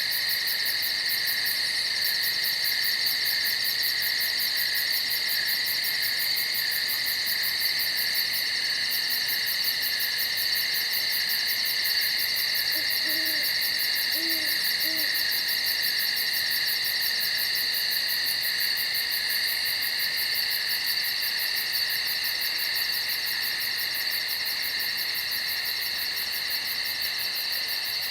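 Night forest ambience: a steady insect chorus with a fast, even pulsing trill high up. About halfway through, an owl hoots three short notes in quick succession.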